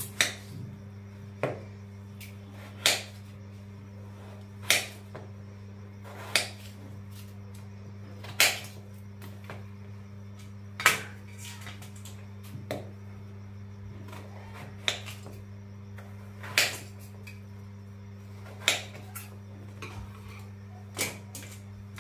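Sharp metallic clinks, about a dozen, one every two seconds or so, as potatoes are cut by hand with a knife and the pieces land on a steel plate; a steady low hum runs underneath.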